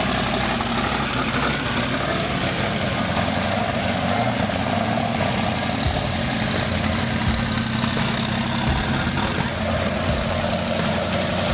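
Twin-turbo big-block Chevrolet V8 in a 1930 Plymouth sedan idling steadily, the engine newly got running.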